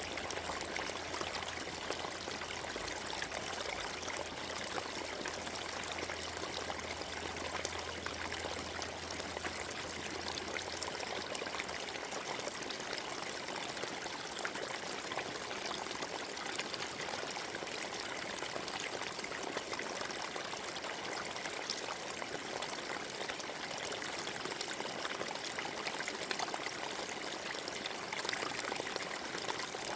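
Forest stream running steadily over its bed, an even rush and trickle of water.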